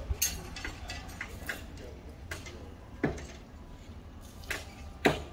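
Scattered sharp knocks and taps of hand tools at work on a building site, irregularly spaced, with louder knocks about three and five seconds in.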